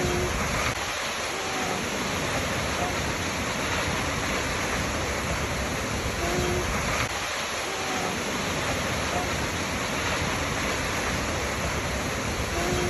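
Waterfall rushing in a steady, dense roar of falling water, with a few faint short tonal notes recurring every few seconds.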